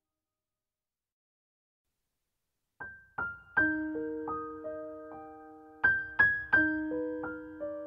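Silence, then about three seconds in, background piano music begins: single notes and chords struck one after another, each ringing on and fading.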